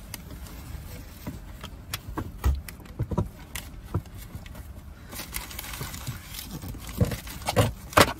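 Tesla Model 3 interior trim being worked loose and handled: scattered clicks, taps and rustling as clips release and pieces are moved, with a few louder knocks near the end.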